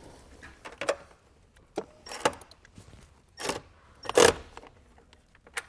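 Cordless ratchet running in a few short bursts as it drives down a ground bolt over a ring terminal, with small clicks and metal-on-metal rattles of the wire and terminal being handled in between.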